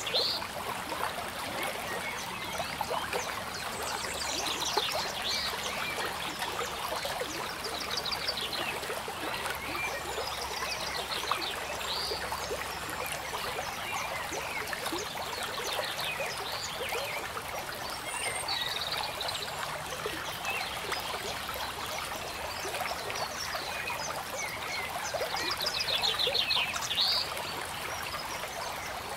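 Steady trickling water, with a short rapid trill, ending in a rising chirp, repeating every few seconds.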